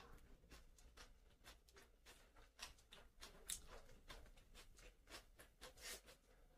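Faint eating sounds: a run of short wet clicks and smacks from chewing and from fingers mixing rice and chicken on a plate, several a second, loudest about three and a half and six seconds in.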